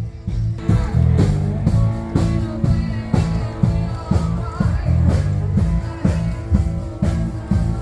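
Rock music with a steady drum beat, guitar and singing.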